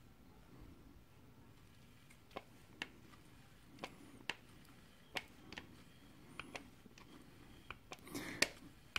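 Hand grease gun being pumped, forcing grease into a motorcycle suspension lowering link's bearings through its grease nipple: faint clicks in pairs, about every second and a half, starting about two seconds in.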